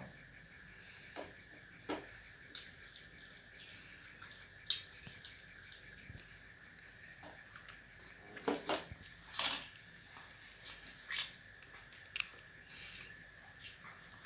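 Crickets chirping steadily in a fast pulsing rhythm, about four or five pulses a second, stopping briefly about three-quarters through. Over them come scattered crunches and mouth sounds of someone biting into and chewing a fried masala bara.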